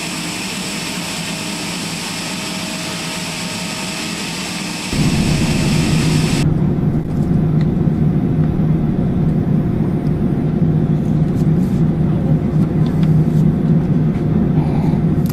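Steady whine and hiss of a parked Airbus A321-211 jet airliner on the apron. About five seconds in it cuts abruptly to a louder, steady low rumble of the aircraft heard from inside the cabin.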